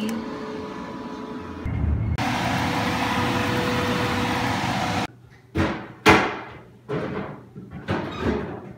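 Grilled cheese sandwiches sizzling in a frying pan: a steady hiss with a humming tone under it, which cuts off suddenly about five seconds in. It is followed by several short, separate noises that each start sharply and fade.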